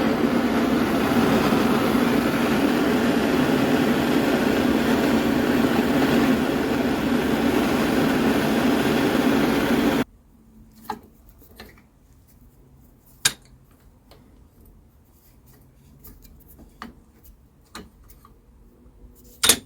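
Heat gun running steadily while warming the Bantam's piston to free it, then cutting off suddenly about ten seconds in. A few light metallic clicks and knocks follow, the sharpest near the end.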